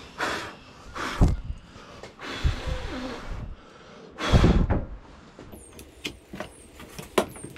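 A person blowing hard four times to clear sawdust out of a freshly routed groove in plywood, each blow a short rush of breath. In the last couple of seconds come a few light clicks and knocks of handling at the bench.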